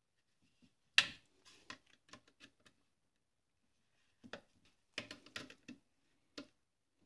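Scattered sharp clicks and taps of a hand tool and small metal parts on a Bosch alternator during reassembly, as its small screws are fitted. The loudest click comes about a second in, with a quick run of lighter clicks near the five-second mark.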